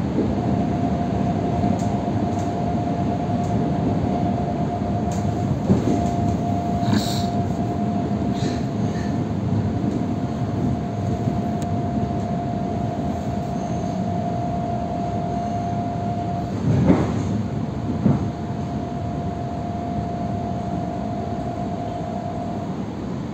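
Ivolga electric train heard from inside while running: a steady low rumble with a thin, steady high whine over it. A few sharp knocks come through, two near the middle and two about three-quarters of the way in, and the whine breaks off briefly at the first of the later pair.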